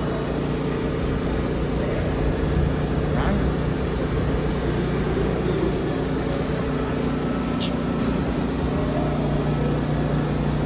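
New York City Subway train cars standing at the platform, giving off a loud, steady mechanical hum with a thin high whine over it. A brief high squeal comes about seven and a half seconds in.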